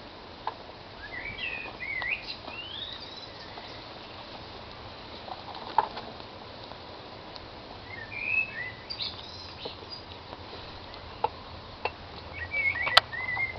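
Wild birds singing in short, warbling chirping phrases, three times, over quiet outdoor background noise. A few sharp clicks and soft knocks come from kittens tussling with a cloth cap.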